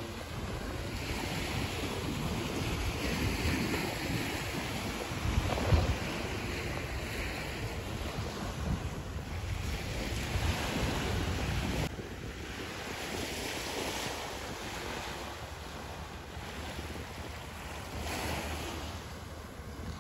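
Small waves breaking and washing up on a sandy shore, with wind buffeting the microphone in slow swells. A brief thump stands out about six seconds in.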